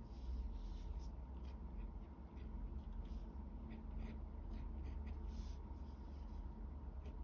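Pen nib scratching on paper in short, irregular strokes as Chinese characters are handwritten, over a steady low hum.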